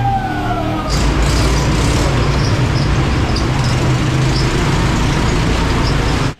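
ATV engine running under a loud, steady rushing noise. A falling whine fades out in the first second, then the sound cuts to a steadier engine drone with rushing noise.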